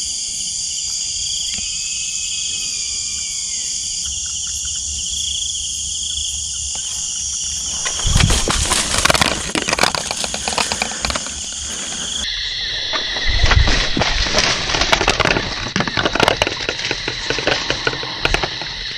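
Steady high-pitched chorus of crickets and other night insects. About halfway through, loud close rustling and crackling starts and runs on irregularly: palm fronds brushed and handled right by the microphone.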